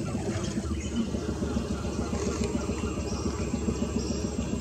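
A boat's engine idling steadily, a low, even rumble.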